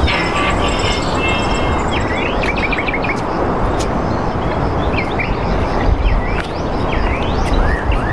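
Small birds chirping with short rising and falling calls, with a quick run of chirps about two to three seconds in, over a steady rushing noise as loud as the nearby talk.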